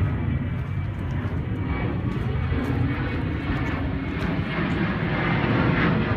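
Wind buffeting a phone's microphone: an uneven low rumble.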